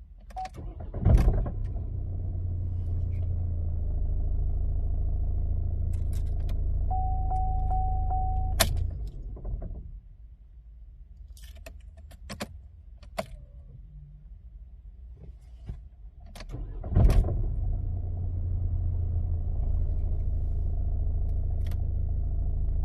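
Opel Astra J 1.6 CDTI diesel engine starting with a loud clunk about a second in, idling with a low rattle, then shutting off around nine seconds with a softer knock. After a pause it starts again with the same loud clunk about seventeen seconds in and idles. The metal-to-metal noise at start and stop appeared after a new Valeo dual-mass flywheel and clutch were fitted, and the owner asks whether the new flywheel is faulty.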